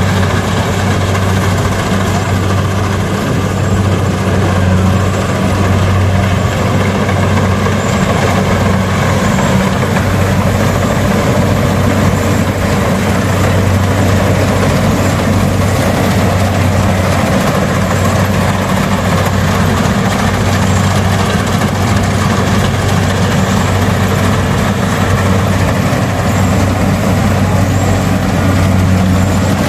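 A small engine running steadily at an even speed, a constant low hum with no change in pitch.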